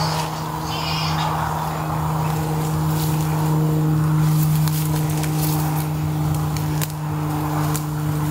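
A steady low hum, with scattered crunching steps through dry grass and brush.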